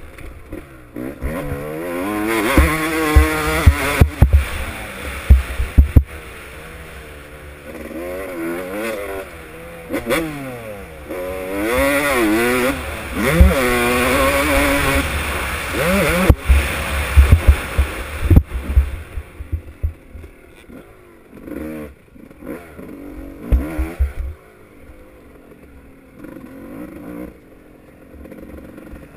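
Motocross dirt bike engine heard from the rider's helmet camera, revving up and down again and again through gear changes, with sharp knocks. After about twenty seconds it drops to quieter, short blips of throttle.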